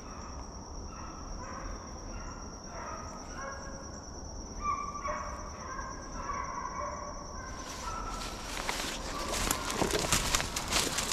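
A pack of hunting hounds baying on a deer's trail, in short, overlapping calls. About eight seconds in, close rustling and crackling of dry leaves and brush takes over.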